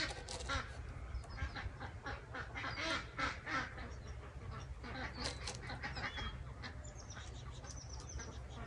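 Faint clicking and rattling of air-rifle pellets being handled, with birds calling in the background.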